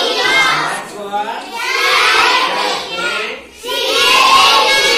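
A class of young schoolchildren reciting loudly together in chorus, in three long chanted phrases with short breaks between them.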